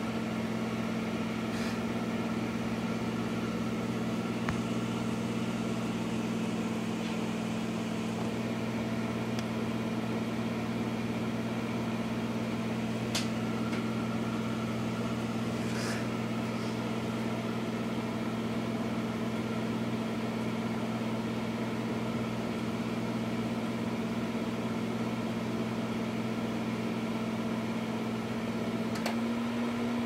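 Microwave oven running with a steady electrical hum, broken by a few brief ticks; the hum changes slightly near the end.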